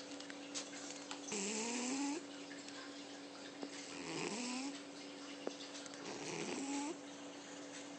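A sleeping pet snoring: three snores about two and a half seconds apart, each a raspy breath with a whistling tone that rises in pitch.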